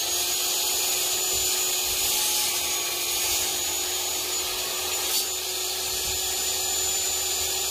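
Corded electric saw's motor running at full speed with a steady high whine while making a cut in wood trim. It is drawing a little over 900 watts.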